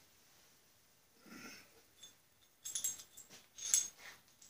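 A few light metal clinks of tools and hardware being handled, in the second half, after a faint soft knock about a second in.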